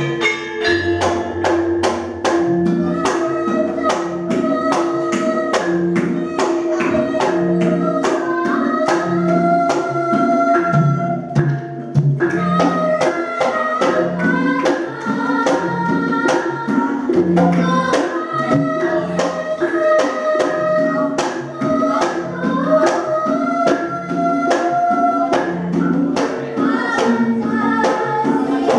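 Javanese gamelan playing a brisk sampak-style accompaniment, with steady, evenly spaced metallophone and gong-chime strokes and kendang drumming, under a girl singing a palaran tembang into a microphone with long, gently ornamented held notes.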